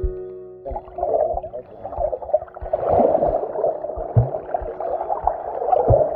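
Water heard underwater by the camera: a muffled, churning gurgle of bubbles and moving water from a snorkeler swimming close by, with irregular low thuds. It starts abruptly about a second in.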